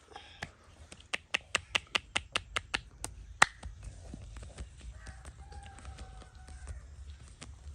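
Massage percussion from the masseur's hands: a quick, even run of about nine sharp clicks, about five a second, then a single louder crack.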